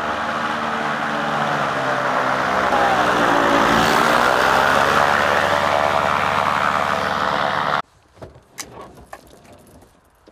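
Backpack paramotor engine and propeller running hard as it pushes a skier along. Its pitch dips and climbs back about three to four seconds in. The sound cuts off suddenly about eight seconds in, leaving only faint scattered clicks.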